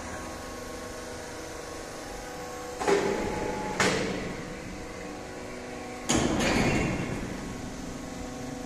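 Excavator-mounted rock drill rig running steadily with a hum, broken by sharp clanks: two knocks about three and four seconds in, then a louder clatter about six seconds in that dies away over a second or so.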